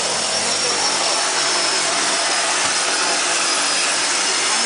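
Turboprop engines of a de Havilland Canada DHC-6 Twin Otter seaplane running at high power, heard from inside the cabin as a steady loud drone. A thin high turbine whine sits over it and rises slightly near the end.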